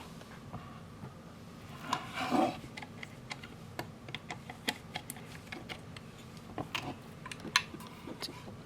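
Scattered small clicks and taps from handling a soap shaver while its blade is readjusted, with a brief scrape about two seconds in.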